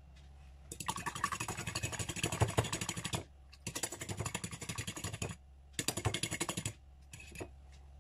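A metal fork beating egg white in a ceramic plate, its tines clicking rapidly against the plate in three quick bursts, with a short fourth near the end.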